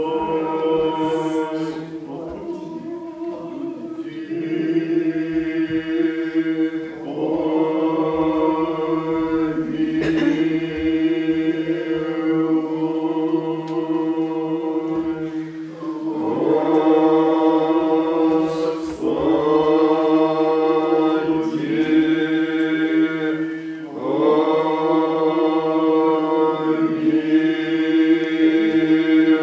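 Old Believer church choir singing unaccompanied chant in long, held phrases, with brief breaks between phrases about every eight seconds.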